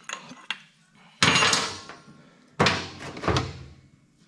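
Metal bash plate toolbox knocking against a steel diamond-plate motorcycle lift table: a few light clicks, then two loud clunks about a second and a half apart, each ringing briefly, and a smaller knock after the second.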